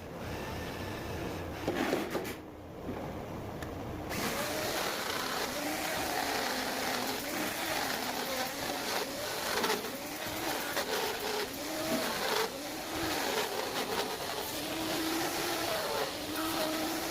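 Electric woodworking power tool running as it cuts a groove in wood, its motor pitch wavering with the load. There is a brief lighter lull early on.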